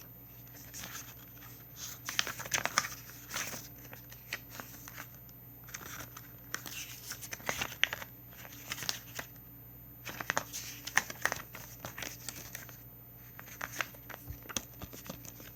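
Paper booklet and inserts from a Blu-ray case rustling and crinkling as they are handled, in irregular spells with scattered sharp clicks.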